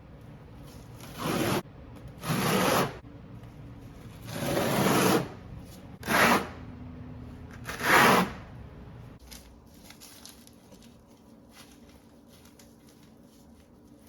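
Five loud scraping strokes of a hand tool on a hard surface, each from about a third of a second to a second long, in the first eight seconds. After that only faint, scattered light scrapes and ticks.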